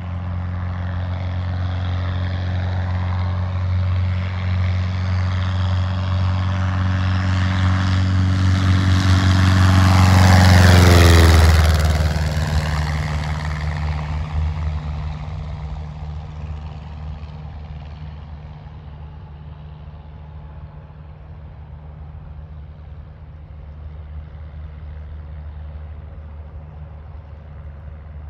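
Cessna 150L's Continental O-200 four-cylinder engine and propeller at full power on takeoff and climb-out. The sound grows louder as the plane approaches, drops in pitch as it passes about eleven seconds in, then fades as it climbs away.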